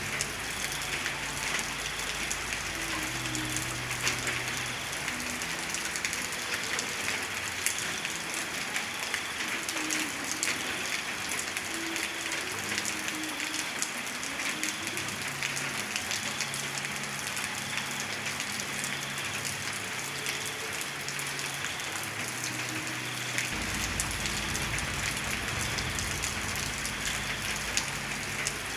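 Steady heavy rain falling on a surface, with many individual drops ticking sharply. A deep low rumble underneath fades out about six seconds in and returns near the end.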